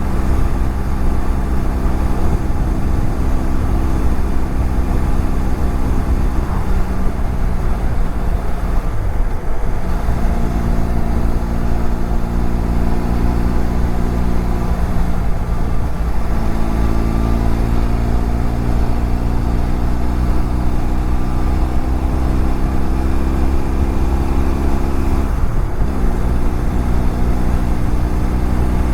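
BMW F700GS parallel-twin engine running at road speed under a heavy rumble of wind. The engine note dips and drops in pitch about a third of the way in and again near the end, then slowly climbs, like the rider easing off and changing gear.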